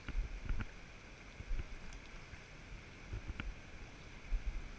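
River water flowing steadily, a continuous rushing hiss, broken by a few low thumps and faint clicks.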